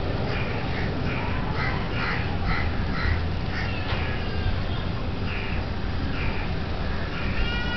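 Crows cawing: a run of short caws, a pause, then a few more past the middle, over a steady low rumble.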